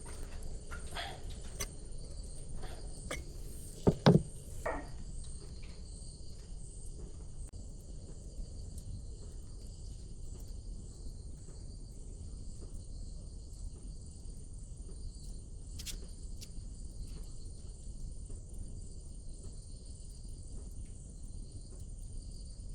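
Insects chirping steadily over a low background hum, with a few sharp knocks in the first five seconds, the loudest a pair about four seconds in.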